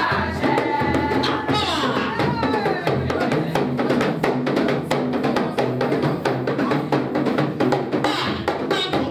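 Dance music with busy, rapid drumming, loud and steady, with a melody line over it in the first couple of seconds.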